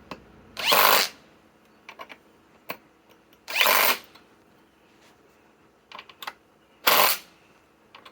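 Three short bursts from a RIDGID cordless impact tool, each about half a second long and roughly three seconds apart, seating 5-inch ledger lock structural screws, with light clicks and handling knocks in between.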